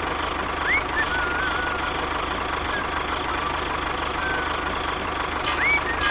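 An engine running steadily at idle with a fast low pulse. Thin wavering chirps sound over it, and there are two sharp clicks near the end.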